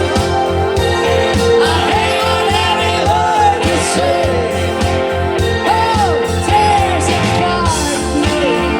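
Live band music with a singer: a sung melody over a steady beat and held accompaniment.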